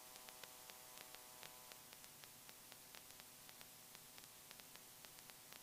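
Near silence: a faint steady hiss and hum with scattered faint ticks.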